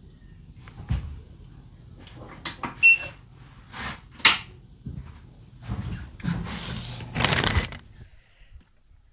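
A series of knocks and clicks, the sharpest about four seconds in, then a longer rustling scrape for about two seconds, like things being handled and a door or cupboard being opened and shut.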